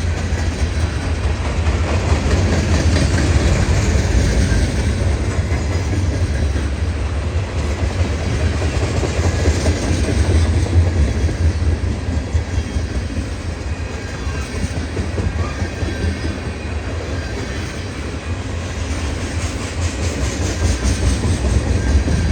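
CSX freight train moving through a rail yard: a steady low rumble with wheel and rail noise.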